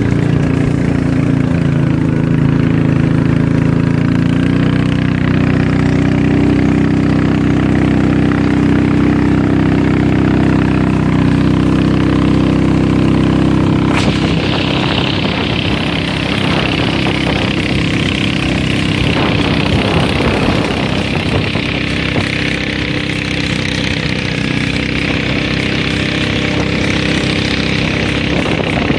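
Motorized river boat's engine running steadily at speed, with water rushing along the hull. About halfway through there is a knock of a finger on the microphone, after which the hiss of water and wind grows stronger and the engine hum fainter.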